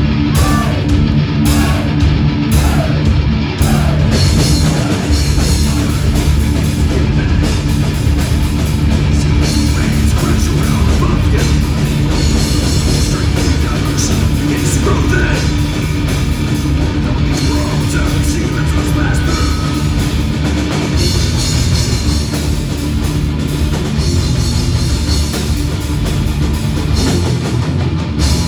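A live rock band playing loudly: electric guitars, bass guitar and a drum kit.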